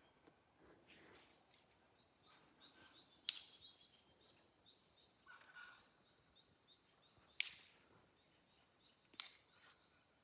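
Near silence: faint outdoor ambience with a faint run of short, high repeated bird calls and a few soft clicks.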